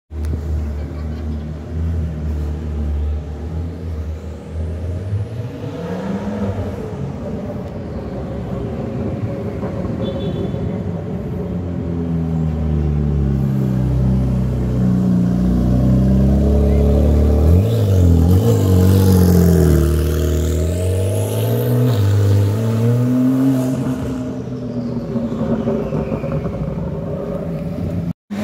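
Sports car engines running and revving in street traffic. The pitch rises and falls several times, and it is loudest a little past the middle.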